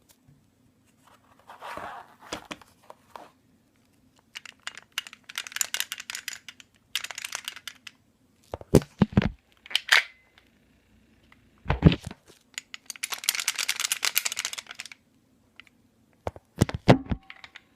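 ASG G19 airsoft pistol rattling in several bursts of fast dense clicking, with a few sharper knocks between them; the owner is unsure whether this rattle is normal.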